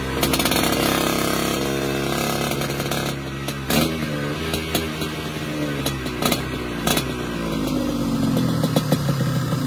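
Lambretta scooter's Casa Performance SSR265 two-stroke engine running on a dyno, its pitch dropping sharply about four seconds in, then gliding down and back up as the revs change. Near the end it settles toward a popping idle.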